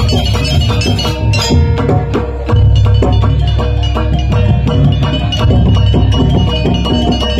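Live campursari band accompaniment in gamelan style: quick drum and percussion strokes over held pitched notes, with a deep bass coming in strongly about two and a half seconds in.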